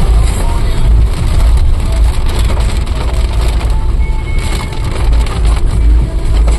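Car driving on a wet road in heavy rain, heard from inside the cabin: steady deep road rumble under rain and tyre hiss.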